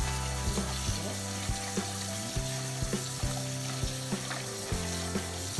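Background music with a steady beat and a bass line that changes notes, over a hiss of tap water running as spinach is rinsed.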